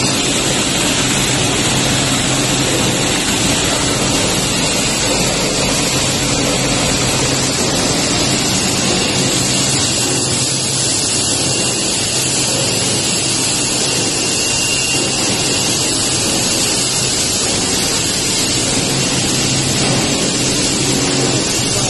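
Steady, loud machinery noise of a running PET bottle recycling line, a constant low hum under a dense hiss.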